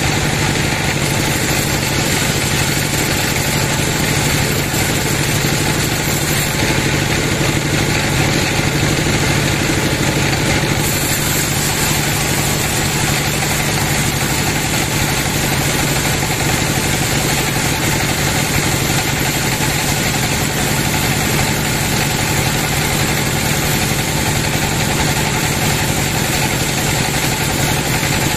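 Band sawmill running steadily as its vertical blade rips lengthwise through a large log, a loud continuous machine hum with the hiss of the cut.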